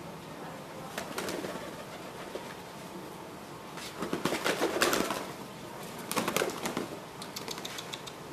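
Domestic pigeons cooing on and off, loudest about four to five seconds in, with a few sharp clicks near the end.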